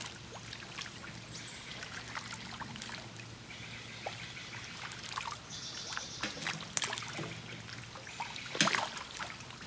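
Small splashes and plops at a pond's surface as trout rise to take feed pellets, with a few sharper plops in the second half.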